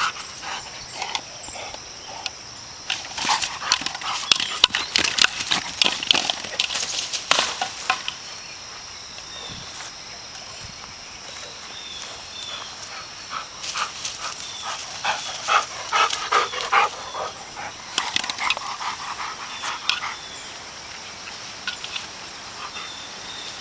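A Labrador retriever mouthing and pushing a hard plastic Jolly Ball across grass: clattering clicks and scrapes of teeth and paws on the ball, in two spells, a few seconds in and again past the middle.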